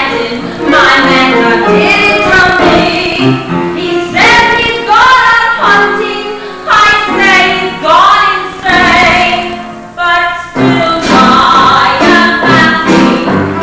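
A woman singing a show tune with instrumental accompaniment. Her voice slides upward into several phrases.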